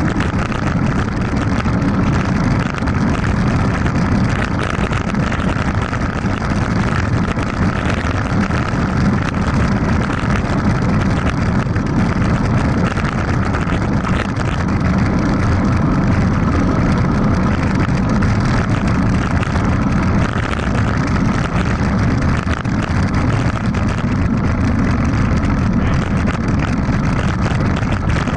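Steady wind rush over a Sony HDR-AS100V action camera's microphone as a mountain bike descends a dirt road at about 25 to 40 km/h, mixed with the low rumble of the tyres rolling on the dirt.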